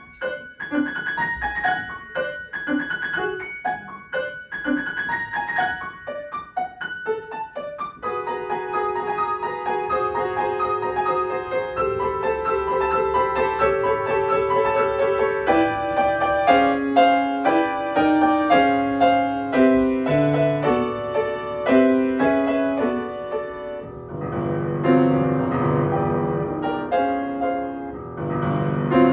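Piano playing. For about the first eight seconds it plays short, detached notes and chords. Then come sustained, ringing chords that grow louder, with strong accented strokes from about the middle, moving into heavier low chords near the end.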